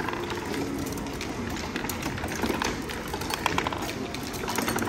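Busy indoor ambience: a steady din with many small irregular clicks and clatter throughout.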